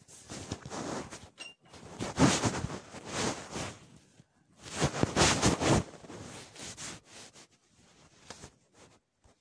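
Rustling and scraping in three loud bursts, the loudest about two seconds in and again about five seconds in.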